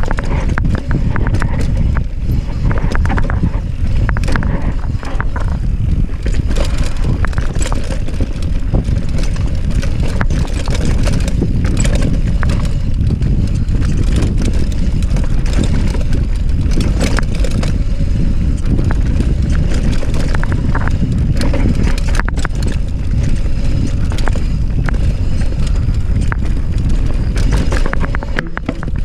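Mountain bike descending a rough trail: a steady low rumble from the tyres over dirt and rocks, with frequent clattering knocks from the bike.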